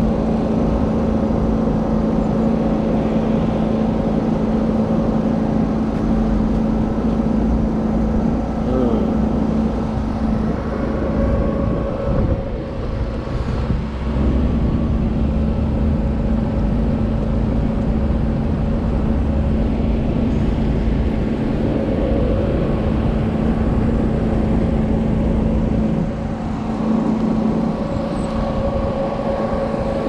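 Portable generator's engine running at a steady speed, a constant hum with an unchanging pitch.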